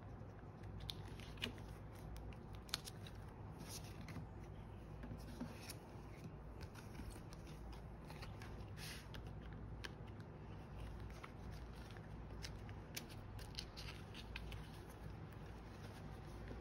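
Photocards being handled and slid into the clear plastic sleeves of a photocard binder: light rustling of card and plastic with many small scattered clicks and taps, over a steady low background hum.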